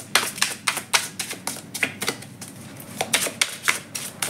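Tarot cards being shuffled by hand: an irregular run of sharp, crisp card slaps and snaps, a few a second.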